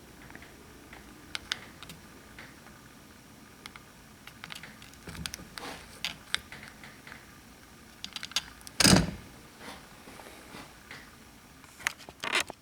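Scattered small clicks and taps of hands working with tools and test clips, with one louder knock about nine seconds in.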